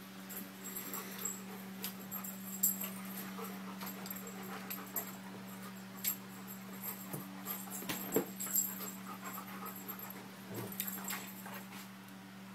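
Two German shepherd dogs play-fighting: panting and scuffling, with many short sharp clicks and knocks, over a steady low hum.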